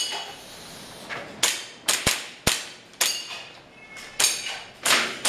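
Airsoft pistol firing single sharp cracks at an irregular pace, about eight shots spread over the last four seconds with uneven gaps between them.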